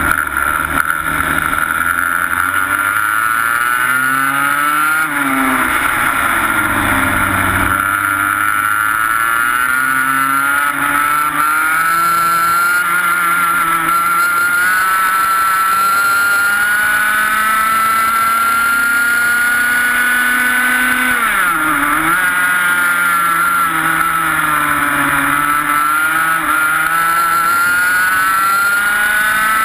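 Single-cylinder 125cc two-stroke TaG kart engine heard close up from on board, running at race pace. Its pitch falls early, then climbs steadily for a long stretch, drops sharply for braking a little past two thirds of the way through, and climbs again as it accelerates out.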